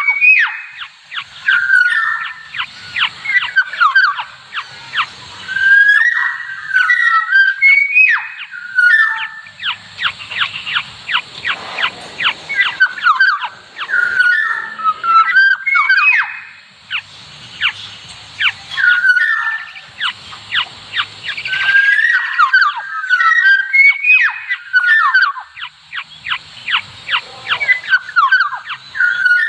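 Kepodang emas orioles calling: short whistled phrases alternating with long runs of rapid, harsh rasping chatter, repeated over and over with a few brief pauses.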